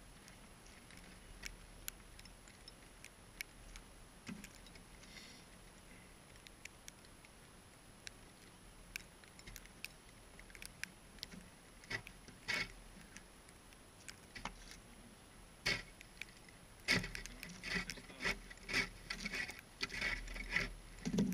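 Shovel scraping and chipping at ice and slush at the edge of a hole in lake ice. Scattered clicks at first, then a quick run of scrapes and knocks over the last few seconds.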